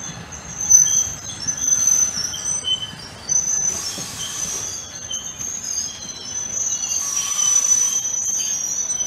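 Bilevel commuter train coaches rolling slowly by, their wheels giving a steady high-pitched squeal, with two short bursts of hiss about four and seven seconds in.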